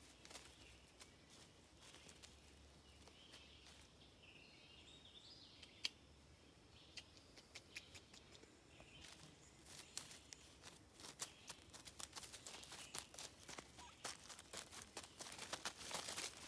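Faint footsteps crunching and rustling through dry leaf litter on a forest floor, sparse at first, then dense crackling from about halfway that grows loudest near the end. Faint bird calls a few seconds in.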